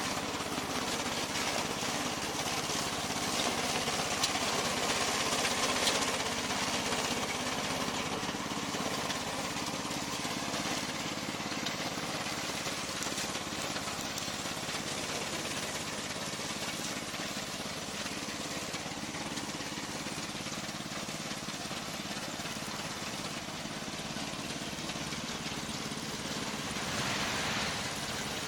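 Gasoline engine of a tracked remote-control lawn mower running steadily, a little louder a few seconds in and again near the end.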